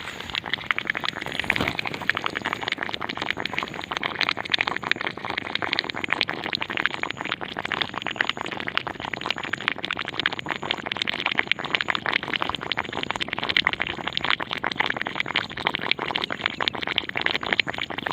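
Dense, continuous crackling made of countless rapid, irregular clicks, the unexplained sound coming from inside a field.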